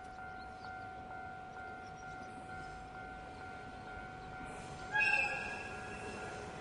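Railway level-crossing alarm ringing with a steady repeating tone. About five seconds in, a short whistle blast sounds from the approaching C12 steam locomotive.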